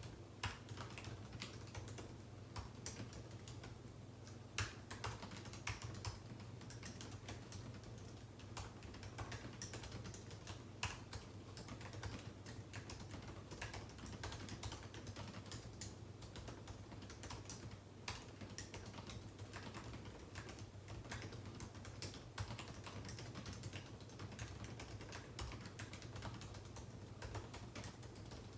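Typing on a computer keyboard: quick, irregular keystroke clicks in runs with short pauses, over a steady low hum.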